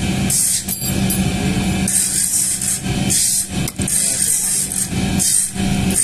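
Rasping scrapes of a cast aluminium hook rubbed against a brick to smooth off the casting flash, in repeated strokes a second or two apart, over a steady low hum.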